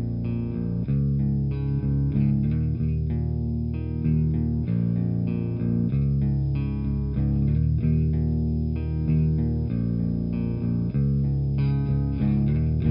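Electric guitar, a Fender Jazzmaster in drop B on its bridge pickup, played through a Kuro Custom Audio Exegol Sunn Model T-style preamp pedal. It is a looped riff of picked notes that change about every half second to a second over low ringing notes, with a light amp-like grit.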